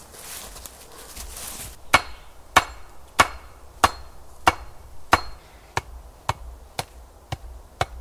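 Rhythmic blows of a tool on wood, about eleven strikes a little over half a second apart, starting about two seconds in. The first few blows ring faintly, and the later ones come a little quicker and softer.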